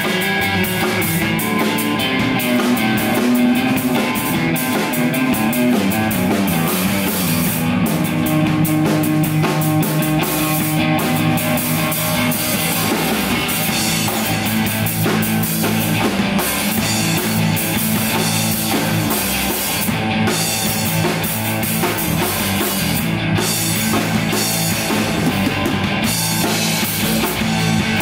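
A live rock band playing loudly: electric bass, electric guitar and a drum kit, with no singing.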